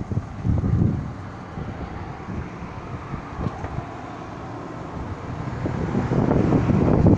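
Gusting wind buffeting the microphone with low rumbles: a gust about half a second in, then a stronger one building over the last couple of seconds.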